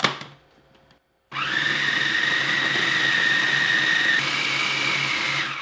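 Food processor motor running, grinding clumpy ground peanuts into peanut butter: a loud steady whine that steps up slightly in pitch about four seconds in, then stops. A click near the start, as the plastic lid is handled.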